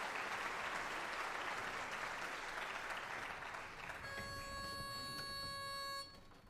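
Audience applauding. About four seconds in, a barbershop pitch pipe sounds one steady, reedy note for about two seconds to give the chorus its starting pitch, and the note and the applause stop together.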